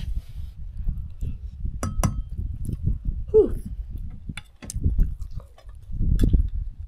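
A metal fork clinking and scraping against the inner pot of a small rice cooker while scooping food, two sharp clinks about two seconds in and more a couple of seconds later, over a low rumble. A short hum of approval sounds about three seconds in.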